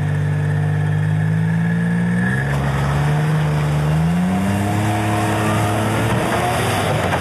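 Wild Panther 8x8 amphibious ATV's engine running under the load of towing through snow. Its pitch dips a little over two seconds in, then climbs again as it revs up.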